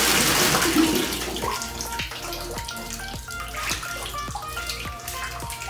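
Water running into a bathtub, which stops about a second and a half in; after that, background music with a steady beat.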